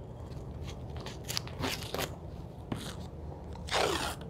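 Blue painter's tape being pulled off the roll in several short rasping rips, then one longer, louder strip pulled off a little under four seconds in.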